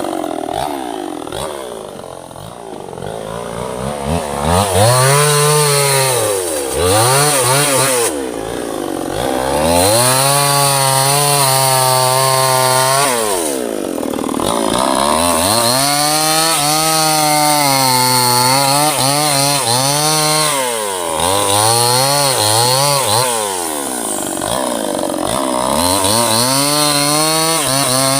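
Two-stroke chainsaw cutting teak wood, its engine running low for the first few seconds, then revving up to full speed and dropping back down again and again as the throttle is worked through the cut.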